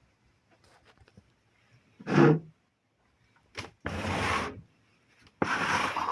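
Three short rubbing, scraping sounds, the first the loudest and briefest, the last two each lasting most of a second.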